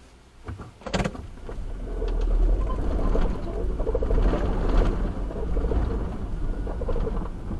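Car pulling away from a stop, heard from inside the cabin: a couple of sharp knocks about a second in, then a low engine and road rumble that builds over about a second and runs on steadily as the car drives.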